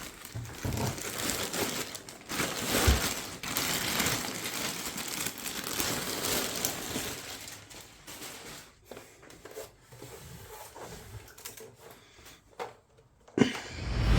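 Packaging crinkling and rustling as something is unwrapped and handled. It comes in irregular bursts, then thins out to scattered small clicks and a single knock over the last few seconds.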